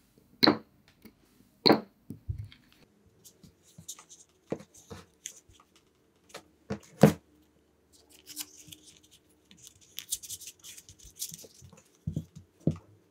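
Hand-work on a three-cell 18650 lithium-ion pack: a few sharp clicks and taps as the cells and metal probe tips are handled, the loudest about seven seconds in. Then a few seconds of crackly tearing and rustling from the blue masking tape that binds the cells, and more taps near the end.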